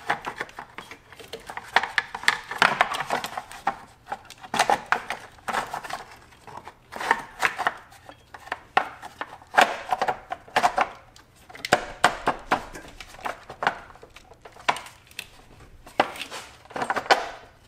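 Car engine-bay parts being handled and refitted by hand, the timing belt cover going back on: a string of irregular clicks, knocks and rattles of parts and tools.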